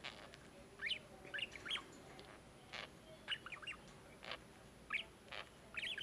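Budgerigars chattering: quick, soft chirps and short warbling glides in scattered bursts, with a few sharp clicks among them.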